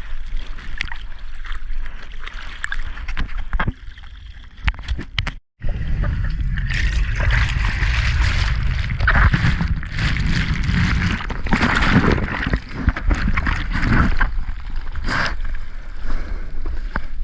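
Ocean water sloshing and splashing around the camera in the surf, with wind and water buffeting the microphone into a heavy low rumble. The sound cuts out completely for a moment about five seconds in and comes back louder.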